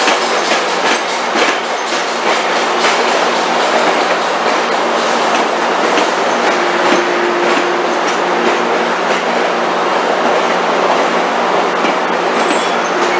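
Metrolink bilevel passenger coaches rolling past at a station platform, their wheels clicking over the rail joints, with a steady low hum underneath. A higher steady tone joins a little past halfway through.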